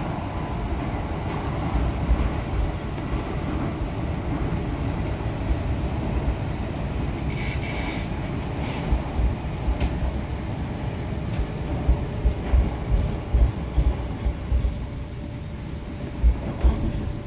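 Cabin of an MTR Tung Chung Line K-Train electric multiple unit running at speed: a steady rumble of wheels on rail and running gear, with several louder low thumps in the last few seconds.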